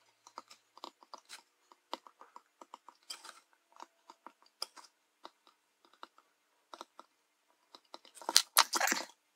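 Solder melting onto circuit-board pads under a soldering iron: faint scattered crackles and ticks, with a louder burst near the end.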